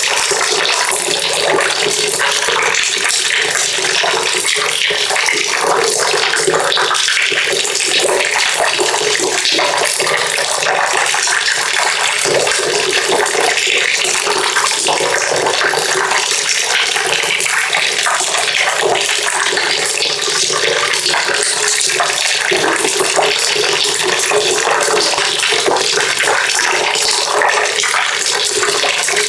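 Water pouring steadily into a bucket: an even, unbroken rush of splashing.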